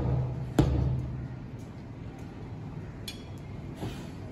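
Hand hammer striking a steel bar held against a huge tyre's sidewall, with a sharp blow right at the start and another about half a second in. The hammering then stops, leaving a low steady workshop background with a faint click and a faint knock near the end.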